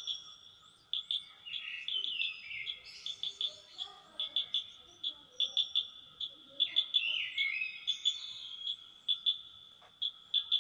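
Several wild birds singing and calling, with sliding, falling phrases, over short sharp chirps that come in quick clusters all through, and a faint steady insect drone.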